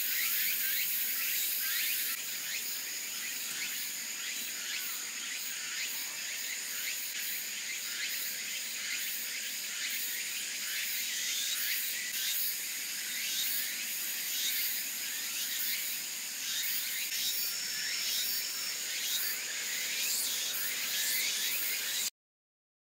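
Steady outdoor ambience of high-pitched insect trilling over an even hiss, which cuts off suddenly near the end.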